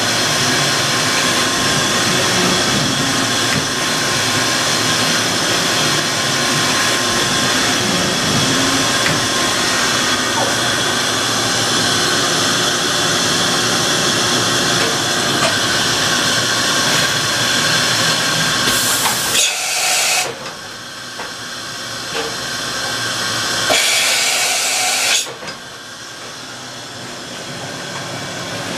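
Matsuura MC-660VG CNC vertical machining center running under power: a loud, steady hiss and whir with faint whining tones. The hiss cuts out about two-thirds of the way through, comes back briefly for about a second and a half, then gives way to a quieter running sound.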